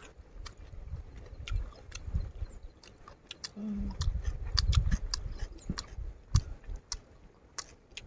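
Chewing of boiled pork small intestine and kidney: wet mouth clicks and soft, irregular chewing, heaviest around the middle.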